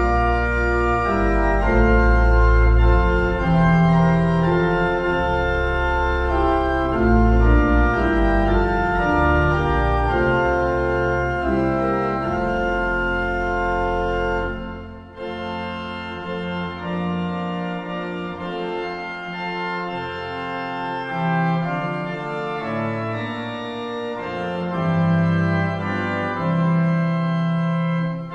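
Slow instrumental music of long held chords over a deep bass line. After a short break about halfway, the music goes on lighter, without the deep bass.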